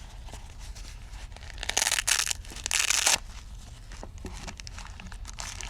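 A knife pouch being opened by hand: light rustling and handling, with two short, loud ripping sounds about two and three seconds in.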